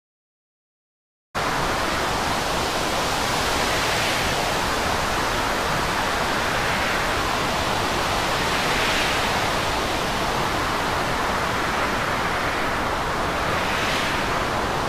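Storm wind and sea at sea, a steady loud rushing noise that swells gently every few seconds. It starts abruptly after a second or so of dead silence.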